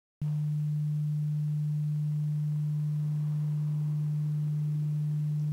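A steady low pure tone, like an electrical hum, that starts abruptly just after the start and holds at one pitch without changing.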